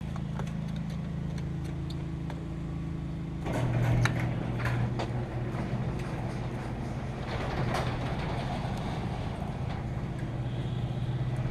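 Motorcycle engine running steadily. About three and a half seconds in, its note steps up and a rushing noise joins it as the bike gets moving.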